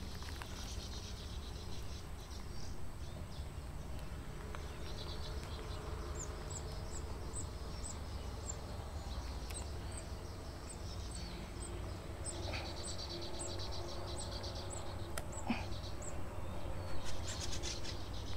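Outdoor insect and bird sounds: a high, short chirp repeated evenly about twice a second, starting about six seconds in and stopping near the end, with a buzzing insect drone joining for a couple of seconds midway. A single sharp click sounds near the end.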